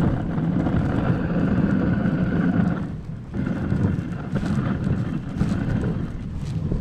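A dog sled gliding over snow: the runners keep up a steady scraping rush while wind buffets the microphone, with a short lull about three seconds in.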